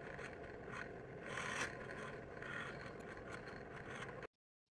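Drill press spinning a cone-shaped buffing wheel with a knife handle pressed against it: a steady whir with rubbing and scraping that swells and eases as the handle is worked against the buff. The sound cuts off abruptly about four seconds in.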